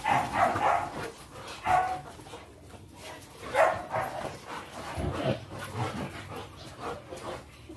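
Dogs barking in excitement as they are leashed for a walk: a handful of short barks a second or two apart.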